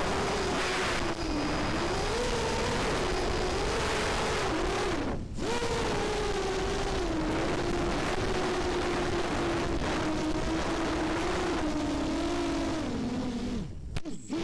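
Brushless motors and propellers of a QAV210 FPV racing quadcopter whining over rushing airflow on the onboard camera, the pitch rising and falling with throttle. The whine drops out briefly about five seconds in, then sags and cuts out near the end as the battery runs low.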